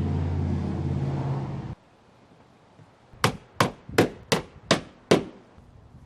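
A circular saw runs steadily for under two seconds and cuts off suddenly. Then a claw hammer strikes six quick blows, about three a second, driving a nail into wooden siding trim.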